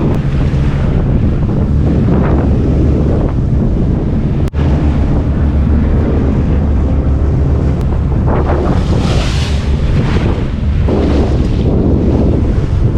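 Wind buffeting the microphone in a constant low rumble, with waves washing against a sailing boat's hull that swell up in noisy surges two or three times.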